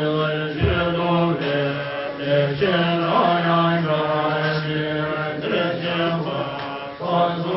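Tibetan Buddhist aspiration prayer chanted by voices together on a low, steady pitch, continuing with brief pauses.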